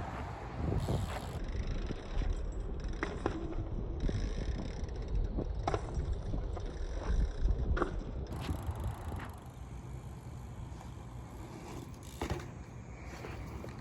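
Fit BMX bike being ridden: a low rumble of tyres rolling, with wind on the microphone, broken by several sharp knocks and clanks from the bike as it lands and hits things.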